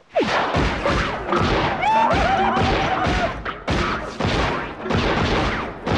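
A rapid string of loud thuds and bangs that starts suddenly and runs almost without a break, with a wavering pitched sound in the middle.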